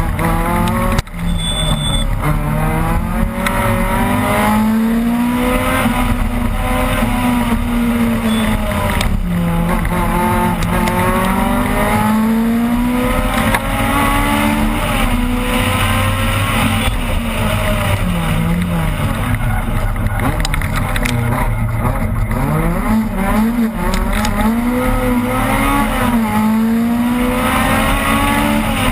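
Opel Kadett rally car engine heard from inside the cabin, revving hard and falling back over and over as the driver works through the gears and lifts for corners.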